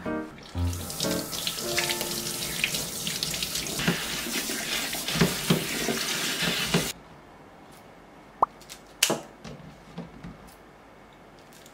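Kitchen tap running into a bowl of green chilies being rinsed in a stainless steel sink, the water splashing steadily; it stops suddenly about seven seconds in. A few short, sharp snips of kitchen scissors cutting the chilies follow near the end.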